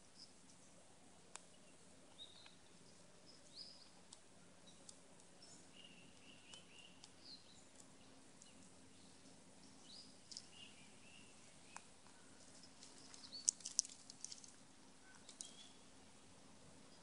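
Scattered sharp clicks and crackles from an eastern gray squirrel cracking and chewing bird seed close by, with a quick flurry of clicks about two-thirds of the way through. Under them, faint bird chirps now and then over a low woodland background.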